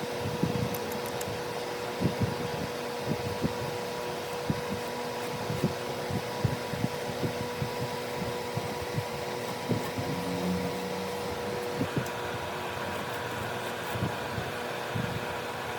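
Irregular light knocks and taps of wood being worked by hand, a dozen or more scattered through, over a steady hum from a fan or motor.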